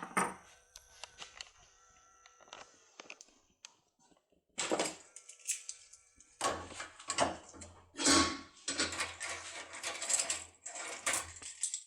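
Metal lock cylinder and decoder tool being handled on a table: a string of clicks, clinks and short rattles, thickest in the second half.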